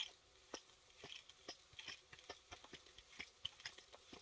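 Light, irregular metallic clicks and ticks, a few a second, from the parts of a pulley puller tool (bolt, washer and block) being handled while the bolt is threaded in by hand.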